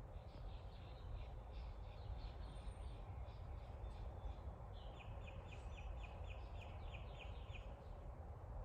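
Small birds chirping, one giving a rapid trill of repeated descending notes, about four a second, from about five seconds in to nearly eight, over a steady low rumble.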